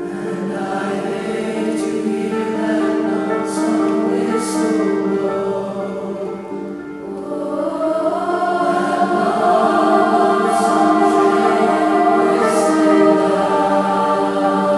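Mixed youth choir singing long held notes in harmony. The sound dips about halfway through, then swells louder.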